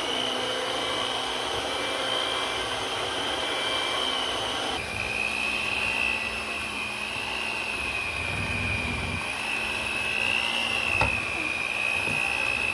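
Electric mixer running steadily, beating egg whites, powdered sugar and cream of tartar into royal icing, with a high motor whine that drops slightly in pitch about five seconds in. A single knock comes near the end.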